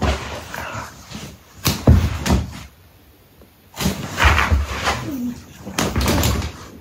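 A Shiba Inu flopping and rolling against a pop-up fabric cat tunnel on carpet: several separate bursts of thumps and rustling fabric, some sharp, with short quiet gaps between them.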